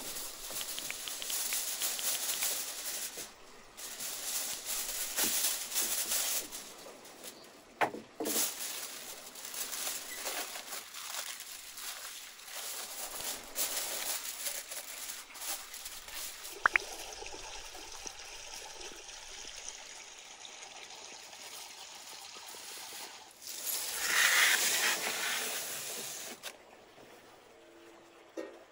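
Aluminium foil rustling and crinkling as a sheet is pulled off the roll and pressed and folded around a dish, with a few sharp crackles.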